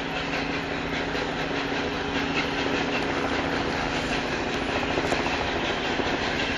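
LNER A4 Pacific steam locomotive hauling coaches slowly towards the listener over pointwork, its wheels clattering over the rail joints against a steady running noise and a low hum.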